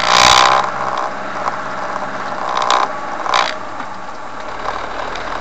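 Car driving, its steady running noise broken by a loud, short clatter in the first half-second and two shorter knocks about three seconds in.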